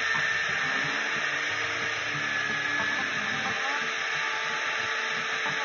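Power drill running a twist bit down through steel tubing under cutting oil: a steady motor whir with a thin high whine.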